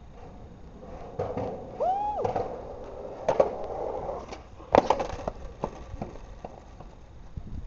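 Skateboard wheels rolling on concrete, with a brief pitched sound rising and falling about two seconds in. The board knocks hard a little past three seconds and again, loudest, near five seconds as it lands and clatters, then gives a few smaller scattered knocks.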